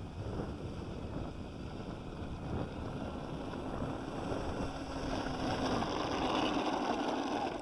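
Wind buffeting the microphone, with the electric ducted fan of a 70 mm EDF Alpha Jet model running as the jet lands on the runway, getting louder toward the end.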